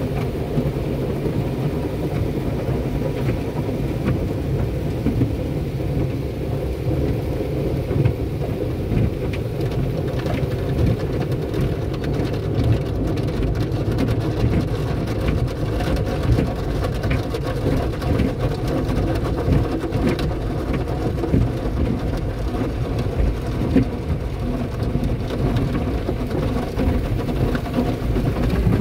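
Automatic cloth car wash heard from inside the car: water spray pattering on the glass and body over a steady machinery hum, with cloth strips brushing across the car.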